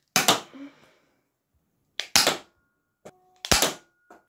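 Nerf Stinger SD-1, a spring-plunger single-shot dart pistol (a Jolt reskin), being handled and fired: three sharp plastic snaps, the second about two seconds after the first and the third a second and a half later, with quieter clicks just before the later two.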